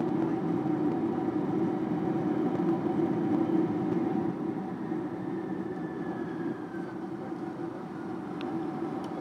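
Cabin noise inside a Boeing 747-400 rolling on the runway after landing: a steady rumble with a constant engine hum, which gets somewhat quieter about four seconds in.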